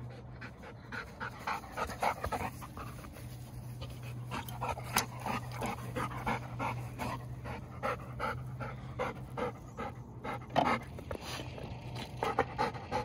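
Golden retriever panting hard up close in a quick, even rhythm, out of breath from running after a ball.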